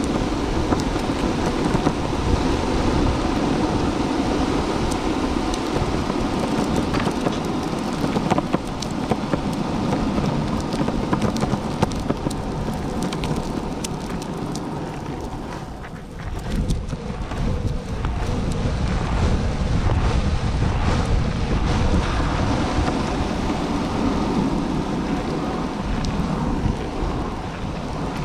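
Longboard wheels rolling over park pavement: a steady rumble with scattered clicks, with wind on the microphone. It dips briefly a little past halfway and then picks up again.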